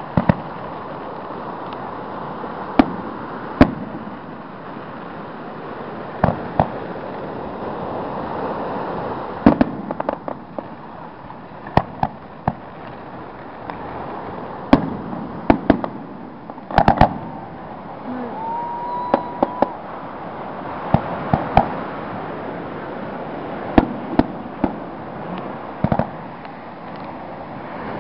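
Aerial fireworks shells bursting in an irregular series of sharp bangs, some in quick clusters of two or three, over steady background noise.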